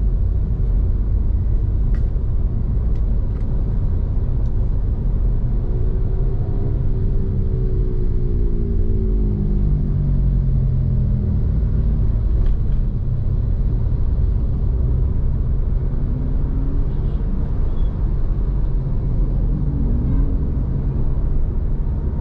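Steady low rumble of road traffic, with a vehicle engine's note falling in pitch from about six to eleven seconds in as it passes or slows.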